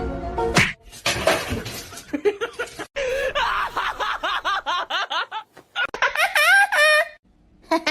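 High-pitched giggling laughter, a quick run of short rising-and-falling bursts lasting about four seconds, after a snatch of music that cuts off about half a second in and a brief burst of noise.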